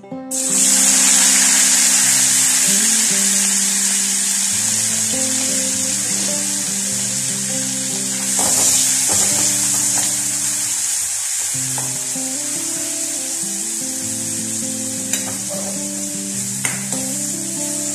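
Dried anchovies frying in hot oil in an aluminium kadai: a loud sizzle that starts suddenly as they go into the oil, then carries on steadily while they are stirred with a spatula. A few sharp taps of the spatula against the pan come near the end.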